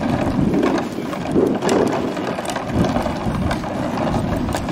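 Hard plastic wheels of a rolling cooler rumbling and rattling over a concrete driveway as it is pulled along, with many small clicks.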